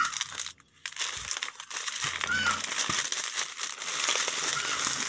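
Plastic Magic Sarap seasoning sachets crinkling and rustling as a strip of them is lifted and shifted by hand among other packets.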